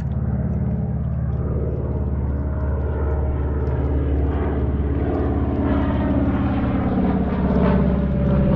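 A float plane's propeller engine droning as it flies overhead, a steady hum that grows louder as the plane banks toward and closes in overhead, loudest near the end.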